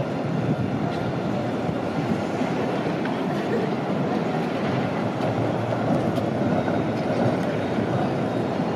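Modern low-floor electric tram approaching on street-running track: a steady rumble of wheels rolling on the rails, with faint higher tones above it.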